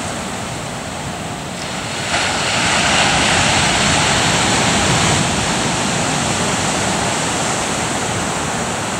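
Ocean surf breaking on a beach: a steady roar of waves that swells about two seconds in and eases off again after about five seconds.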